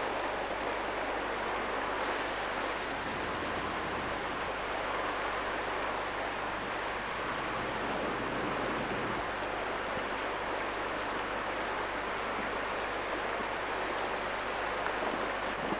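River water rushing steadily past a concrete bank.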